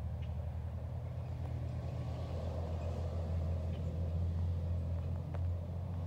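An engine idling steadily, a low, even drone with a fine pulsing throb.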